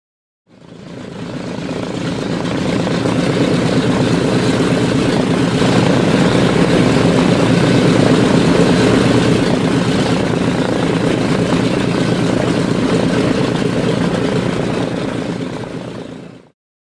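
Propeller aircraft engines running steadily, the radial engines of a B-17 bomber, swelling up from silence over about two seconds and stopping shortly before the end.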